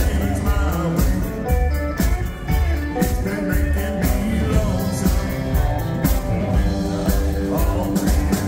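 Live country band playing with a steady drum beat, a walking upright bass, electric lead guitar and pedal steel guitar.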